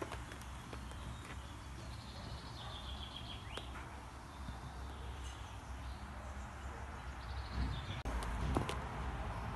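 Kittens clambering on a person: low rustling and handling rumble with scattered scratchy clicks, a few faint high chirps, and a short rising mew near the end.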